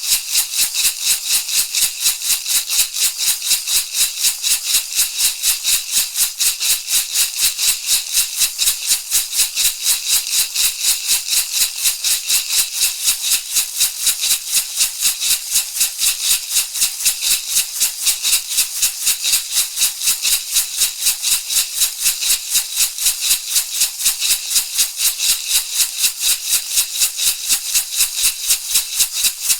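Shamanic rattle shaken in a steady, even rhythm of about three shakes a second, a dry, hissing rattle of seeds or pebbles with no pauses or changes in tempo.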